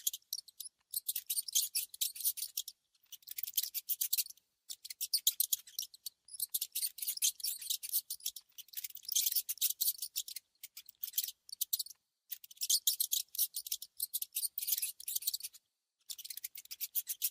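Mice making rapid, dry scratching and crunching sounds, in bursts of a second or two with short pauses between them.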